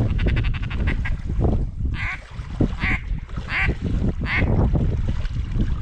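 Duck quacks, about four separate calls spaced under a second apart, over the low sloshing of a person wading through shallow water in waders.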